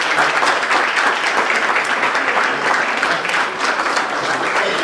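Crowd applauding: many people clapping steadily together.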